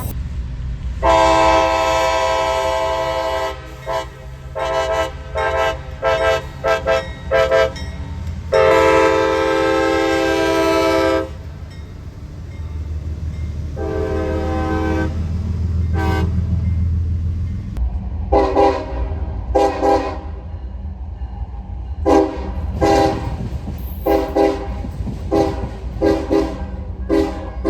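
Train horn sounding several tones at once: two long blasts of a few seconds each, with a run of short toots between them and another pair later. From about two-thirds of the way in, a horn with a different chord gives a quick series of short toots. A low train rumble runs underneath throughout.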